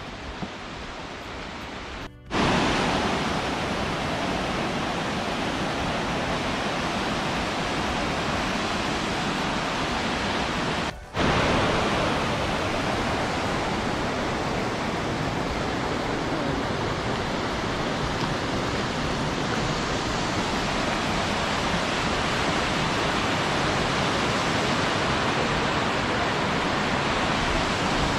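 Steady rush of a fast, rocky river, with a waterfall beyond. It is softer for the first two seconds, then much louder after a sudden cut, and drops out briefly once more near the middle.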